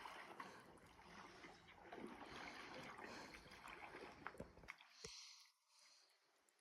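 Faint water sounds from a paddled canoe: swishing and trickling water with a few light knocks, stopping about five seconds in.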